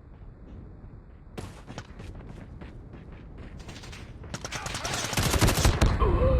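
Video game gunfire: scattered single shots from about a second and a half in, then a long burst of rapid automatic fire near the end, the loudest part.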